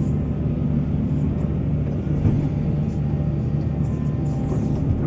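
Heavy diesel engine of mining machinery running steadily under load, with a brief knock a little over two seconds in.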